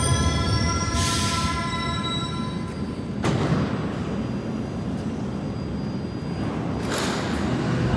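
Berlin U-Bahn small-profile train rumbling through the station, with a high wheel squeal that fades out over the first couple of seconds. Short hisses come about a second in and again near the end, and there is a single knock a little after three seconds.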